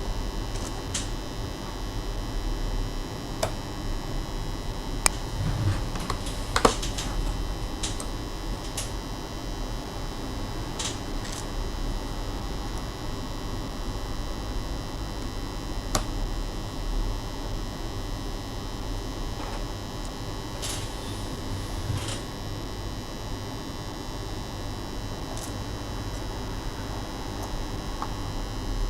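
Steady electrical hum with scattered light clicks and taps of small laptop parts being handled, about ten in all, unevenly spaced.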